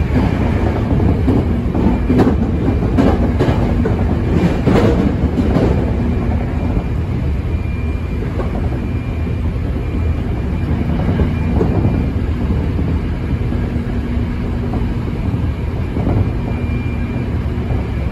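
Hankyu 7300 series electric train running at speed, heard from inside the passenger car: a steady rumble of wheels on rail, with a quick run of clacks from the track in the first few seconds. A faint whine from the Toyo IGBT VVVF traction equipment comes and goes.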